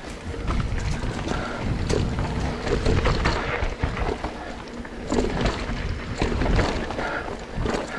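A mountain bike rolling over a rough dirt trail: low rumble from the tyres and wind buffeting the microphone, with scattered knocks and rattles from the bike as it goes over bumps and roots.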